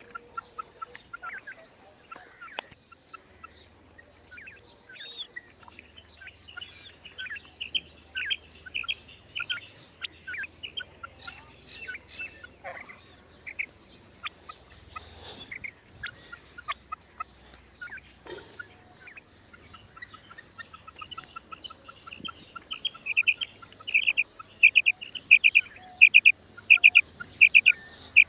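Female quail calling: many short, high calls at irregular intervals with softer, lower notes between them. About three quarters of the way through they build into a loud run of roughly two calls a second.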